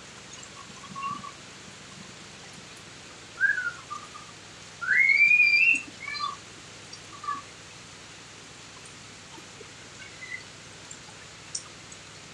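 Steady rain falling, with a few short high whistled chirps. One longer rising whistle about five seconds in is the loudest sound.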